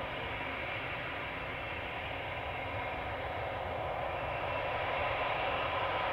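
Boeing 787-9 turbofan engines running at taxi power: a steady rushing hiss with a faint whine, growing slightly louder near the end as the airliner comes closer.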